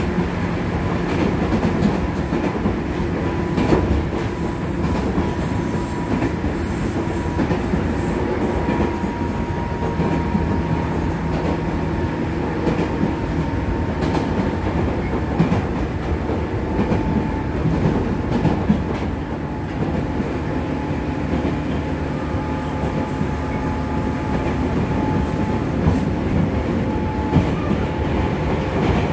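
Running noise of a 205 series 3100-subseries electric train, heard inside motor car MoHa 205-3116 at speed: a steady rumble of wheels and motor with a faint whine whose pitch drifts slowly. Occasional rail-joint clicks can be heard.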